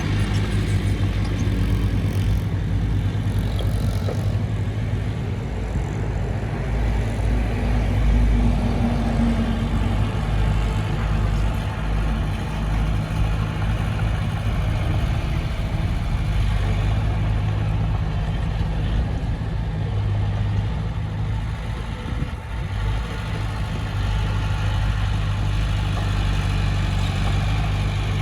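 Diesel engine of a Komatsu D20P crawler bulldozer running steadily as a deep continuous drone, with a short dip in level about 22 seconds in.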